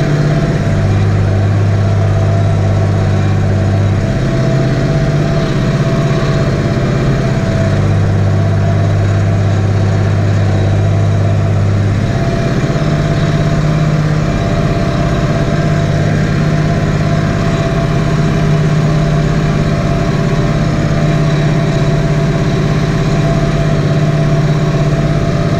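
Tractor's diesel engine running steadily under load while pulling a four-furrow reversible plough, heard from inside the cab.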